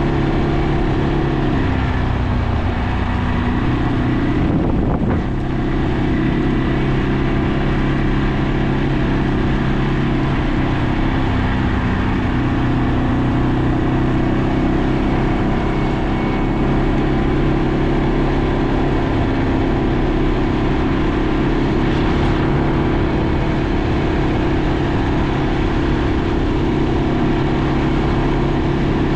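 ATV engine running steadily under way. Its pitch dips briefly a couple of times, early and again about a third of the way in, then settles back to an even note.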